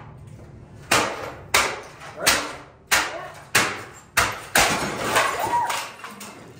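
A rapid series of about nine hard hammer blows, roughly one every two-thirds of a second, smashing items on a wooden stump, each with a short crashing, clattering tail.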